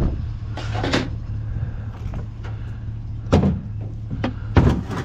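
Vehicle engine running steadily at rest, with a scrape about a second in and two sharp knocks later on, like a door or objects being handled.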